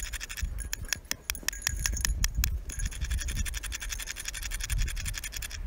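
Two quarters used as a squirrel call: the edge of one coin scratched rapidly over another held in the palm, a fast run of metallic clicking and scratching. It comes in two long bouts with a brief pause about halfway through.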